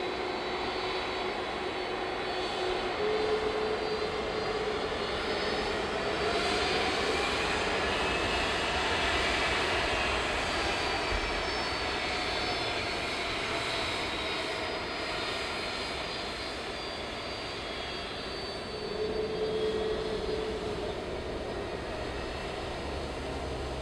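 Amerijet Boeing 767-300F freighter's jet engines running at low taxi power as it taxis on the runway: a steady rush with a faint whine that glides up and down.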